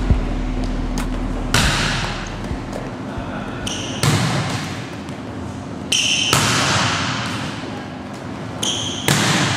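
Volleyball hit hard again and again on an indoor court: four sharp hits a couple of seconds apart, each echoing through the gym. Sneakers squeak on the floor just before three of the hits.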